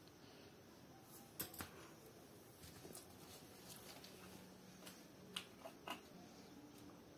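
Quiet room with a few short clicks: two close together about a second and a half in, and three more around five to six seconds in.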